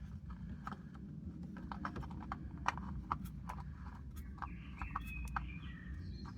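Irregular light clicks and taps from a spin-on oil filter being handled and threaded back onto the engine by hand, over a low steady background rumble.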